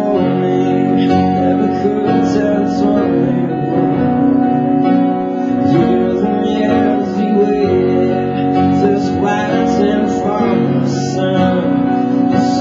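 Live acoustic performance: an acoustic guitar and a piano-voiced keyboard playing a slow pop-rock song together, steady and unbroken.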